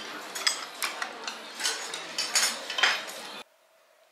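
Tableware clinking at a hotpot table: chopsticks, ladles and plates against the steel hotpot pot, in a string of sharp clinks over restaurant background noise. It cuts off suddenly about three and a half seconds in, leaving near silence.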